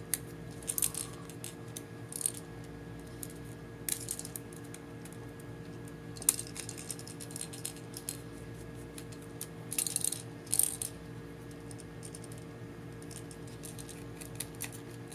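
Small screwdriver working screws out of the compass mount on a DJI Phantom 2's plastic stock landing gear, with scattered light clicks and small metallic rattles of the screws and parts; the loudest clicks come about six seconds in and again around ten seconds in. A faint steady hum lies underneath.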